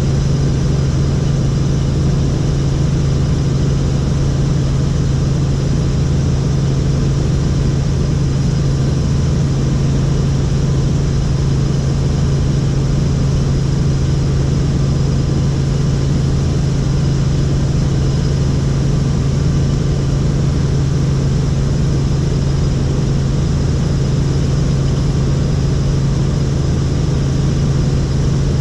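Helicopter in flight: its rotor and engine make a loud, steady drone with a strong low hum.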